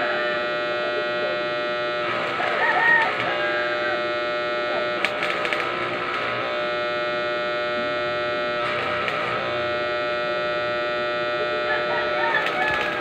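Steady electric buzz with many overtones, typical of an arc welding machine's transformer running, with four short bursts of noisier crackling sound laid over it.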